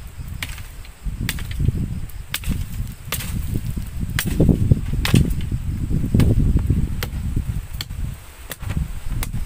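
Wood campfire crackling: sharp, irregular pops roughly once a second over a low, uneven rumble.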